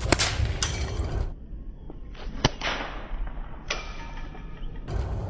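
Paracord shepherd's sling being thrown, with sharp whip-like cracks as it releases sling bullets. There are a few cracks, and the loudest comes about two and a half seconds in.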